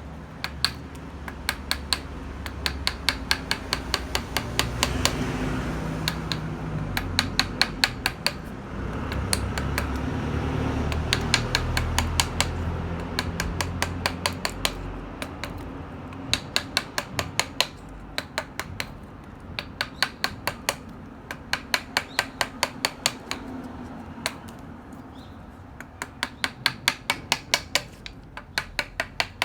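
Mallet tapping a carving chisel into chestnut wood: rapid sharp taps, several a second, in runs broken by short pauses. A low steady rumble sits under the taps through the middle part.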